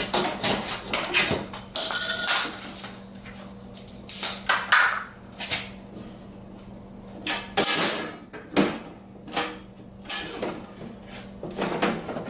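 Irregular clicks, knocks and rattles of hard parts being handled and fitted together, over a steady low hum.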